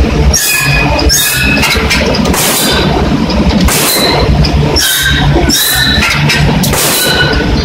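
Forging hammer striking hot steel in a closed die, with a ringing metal clank about once a second over a steady low machine hum.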